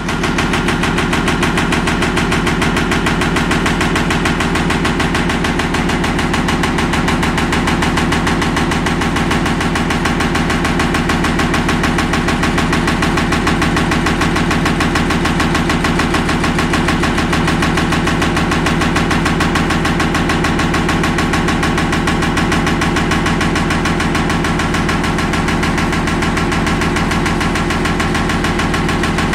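VH-500 pneumatic railcar shaker running steadily against a hopper railcar, a loud rapid even pulsing as it vibrates the car to shake bulk powder out.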